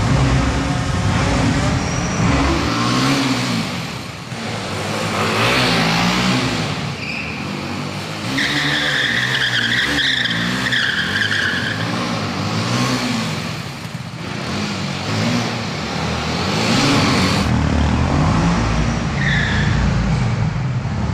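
BMW G 310 R's single-cylinder engine revved hard over and over, its pitch sweeping up and down every second or two, during a smoky burnout. The rear tyre squeals for about three seconds a little before halfway, and briefly again near the end.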